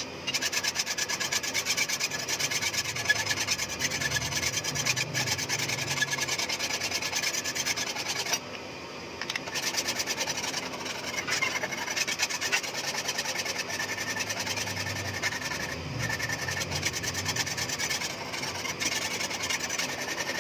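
Steel hand file rasping along the edge of a steel knife blade in quick back-and-forth strokes, sharpening it. The filing stops for about a second some eight seconds in, then carries on.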